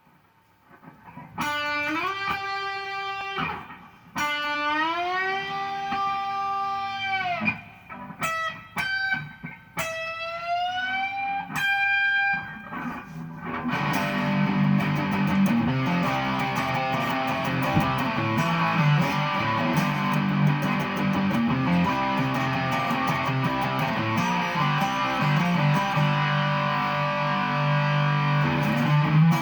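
Charvel San Dimas electric guitar playing single sustained notes, several bent up in pitch and held. About halfway through it switches to a dense, continuous riff on low notes with fast picking.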